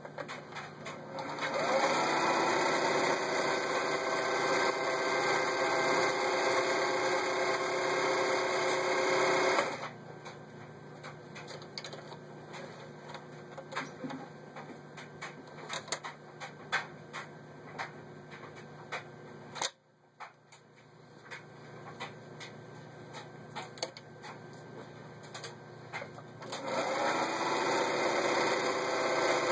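Elna TSP 72C zigzag sewing machine stitching a decorative pattern at speed, its motor whirring up as it starts and stopping about ten seconds in. Light clicks and knocks follow while the fabric is handled, and the machine starts sewing again near the end.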